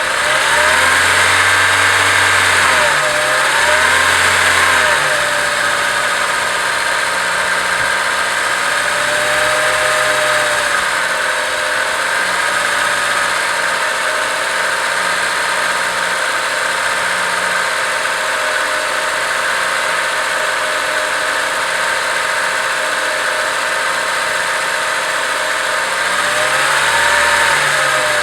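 Acura RSX Type S 2.0-litre four-cylinder engine idling, blipped twice in quick succession about a second in, then settling to a steady idle before being revved again near the end. The owner is chasing a ticking noise from this engine that he says appears once it warms up.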